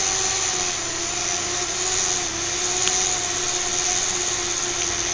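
Small electric motors of a fischertechnik model spinning propellers on pulse-width-modulated power, making a steady whirring hum whose pitch sags a little midway and recovers.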